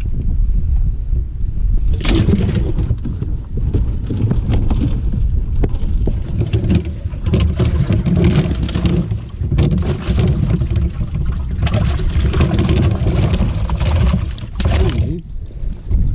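Bass boat running across the lake under its Mercury outboard: a steady low engine rumble under a loud, uneven rush of hull and water noise.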